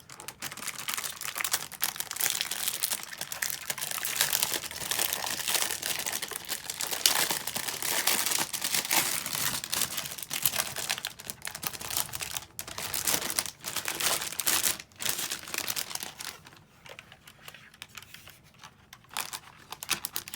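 Packaging crinkling and rustling as it is handled and pulled open, a dense crackle of small clicks that thins out to scattered crackles near the end.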